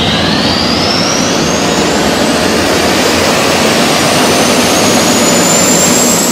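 Jet engine spooling up: a loud, steady roar with a thin whine that rises steadily in pitch throughout.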